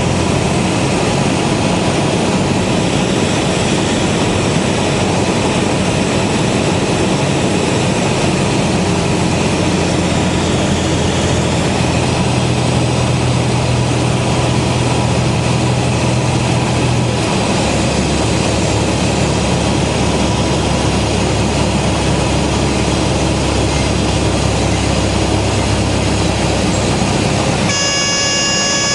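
Cessna 172S's Lycoming IO-360 engine and propeller drone heard from inside the cockpit on approach, its note dropping about two-thirds of the way through as power comes back. Near the end the reedy stall warning horn starts to sound, the sign of the flare just before touchdown.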